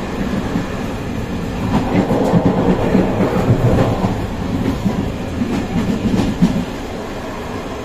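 Steady low rumble of a vehicle moving along a road, growing louder and more uneven from about two seconds in until about six and a half seconds in.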